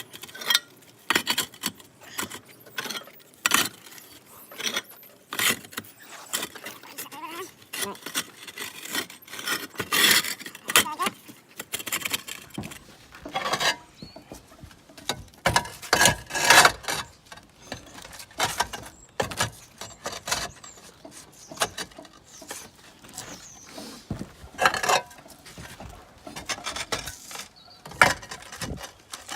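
Roof tiles clinking and knocking together as they are handled and set back in place: irregular sharp clicks and clatters.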